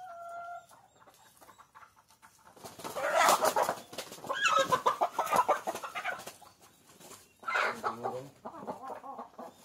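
Chickens clucking and squawking, loudest from about two and a half to six and a half seconds in, with a shorter outburst near the end.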